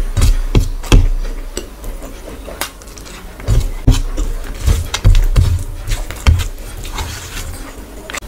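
Close-miked eating: wet chewing and lip smacks from a mouthful of rice and curry, with fingers mixing rice on a metal plate. Irregular sharp clicks and soft thuds come every half second or so.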